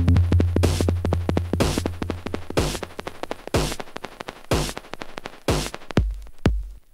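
Techno track built on a drum machine beat. A steady deep bass line drops away about a third of the way in, leaving low kicks, quick clicking percussion and a bright noisy hit about once a second. Near the end it thins almost to nothing for a moment.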